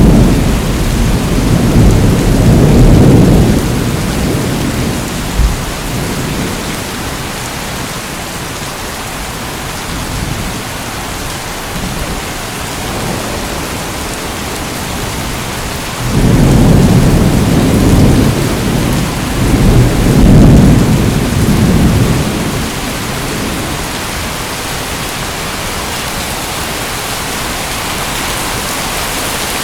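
Steady rain with thunder rumbling: a roll fading out over the first few seconds, then a louder roll coming in suddenly about halfway through and lasting around six seconds.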